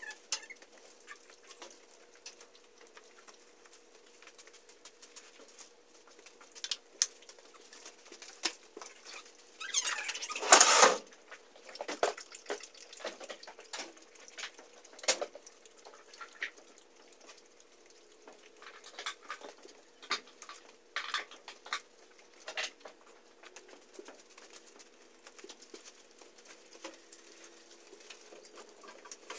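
Small scattered clicks, taps and rustles of plastic Schleich toy horse figures and their tack being handled, with one louder scraping rustle lasting about a second, about ten seconds in.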